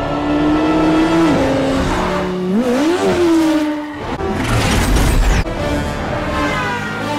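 A motorcycle engine running hard, its pitch dropping about a second in and then climbing sharply as it revs near the middle, over background music.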